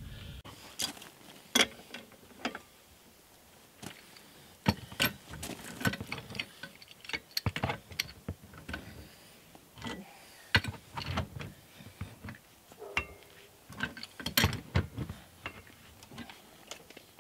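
Pipe wrench and adjustable wrench tightening a threaded black steel gas pipe into an elbow fitting: irregular metal clicks and clinks of the wrench jaws and threads.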